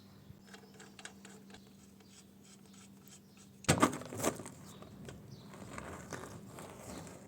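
Faint clicks, scrapes and rustles of handling work, with two louder knocks about four seconds in, over a steady low hum.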